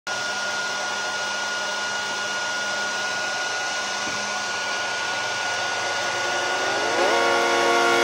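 Homemade soda-can hair dryer running, its small motor-driven fan blowing a steady rush of air with a steady whine in it. About seven seconds in, a higher whine rises and holds, and the sound gets a little louder.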